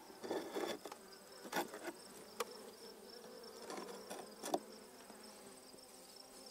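Honeybees humming over an open hive, a faint steady buzz from a calm colony. Several light clicks and taps of a hive tool against the wooden frames break through it.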